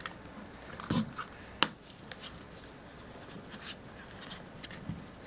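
Plastic pry pick working between a power bank's glued battery and its plastic cover: faint scraping with scattered clicks, a dull knock about a second in and a sharp snap soon after.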